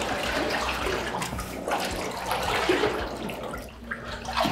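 Water sloshing and splashing continuously as a person wades through a flooded basement where the water is getting deeper.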